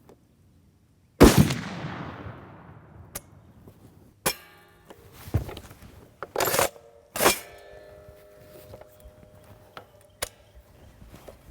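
A single shot from an M82A1 Barrett .50-caliber rifle about a second in, with a long echoing tail. It is followed by several smaller metallic clanks and clicks, two of them ringing briefly.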